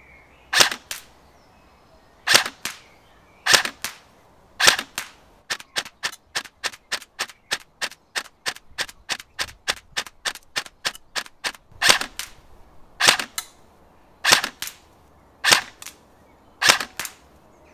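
KWA ERG electric airsoft rifle firing 0.28 g BBs in semi-auto. Single shots come about a second apart, then a quick run of about three shots a second for six seconds, then single shots again, thirty in all.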